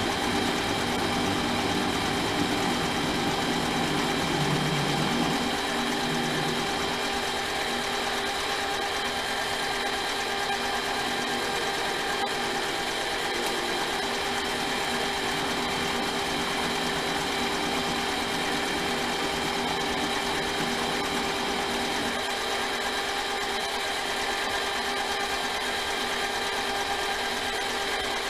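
A small metal lathe running steadily, with its motor and drive giving a constant whine of several fixed tones, as it takes a cutting pass. A lower hum comes and goes in the first few seconds.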